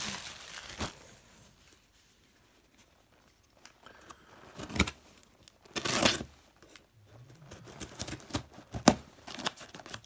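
A parcel's packaging being opened by hand: paper and tape tearing and crinkling in short bursts, with scattered sharp clicks of handling, and a lull of a couple of seconds early on.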